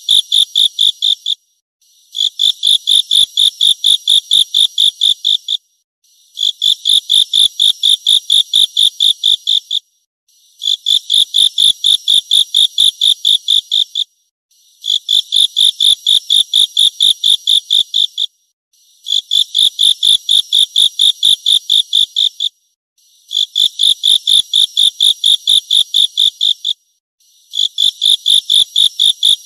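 An insect stridulating: high-pitched, rapidly pulsed chirping in bouts of about three and a half seconds, each followed by a short pause, repeating evenly about every four seconds.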